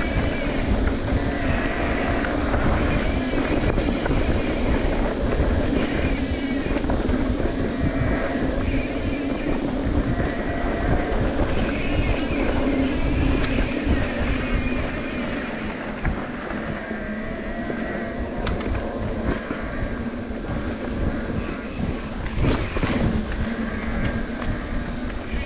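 Wind buffeting the microphone, with the rumble and rattle of a mountain bike rolling over rough, rocky trail. The noise eases somewhat a little past halfway.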